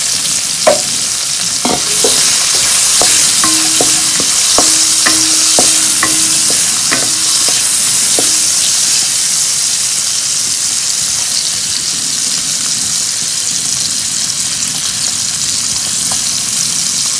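Kailan stems, minced garlic and salted fish sizzling in hot oil in a wok as they are stir-fried. A wooden spatula knocks and scrapes against the wok a number of times in the first half.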